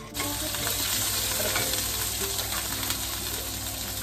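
Spice paste frying in hot oil in a wok: a loud sizzle that starts suddenly as the paste hits the oil and keeps hissing steadily.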